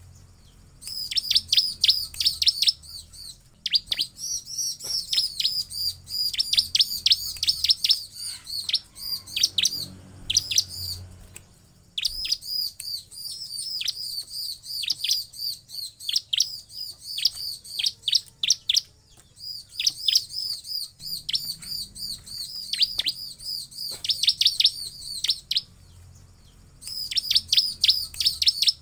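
Bar-winged prinia (ciblek) calling in rapid strings of sharp, high chirps, each sweeping down in pitch. The runs are loud and broken by a few short pauses.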